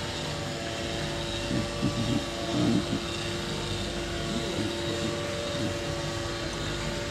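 A steady mechanical drone made of several constant tones over a low rumble, with faint background talking now and then.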